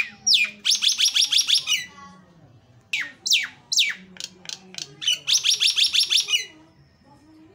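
Caged myna calling loudly. It gives sharp, falling whistled notes and two fast runs of repeated harsh notes, several a second, with the first run near the start and the second past the middle. It falls quiet near the end.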